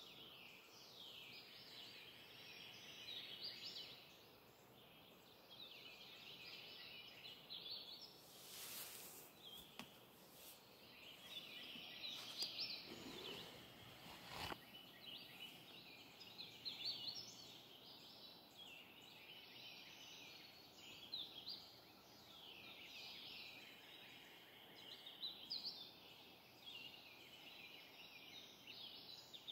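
Faint morning chorus of songbirds: several birds singing short, high phrases and trills, one after another with little pause.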